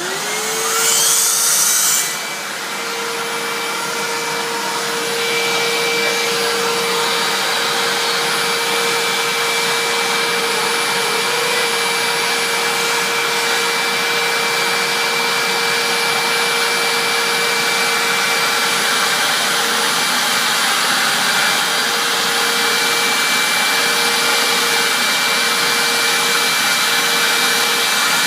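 Hoover upright vacuum cleaner switched on with a turbine brush attachment: the motor whines up to speed in the first moment and runs hissier for about two seconds. After that it runs steadily.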